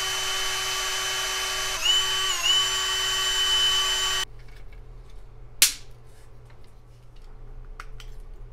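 Power drill with a twist bit running steadily as it drills into a plastic car-door tweeter housing, its whine dipping in pitch twice as the bit bites, then stopping abruptly about four seconds in. A sharp click follows a little later, then light handling clicks.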